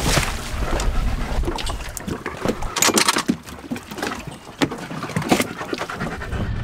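Scattered knocks and bumps over water noise as an inflatable dinghy comes alongside a sailboat's stern and people climb onto the teak swim platform.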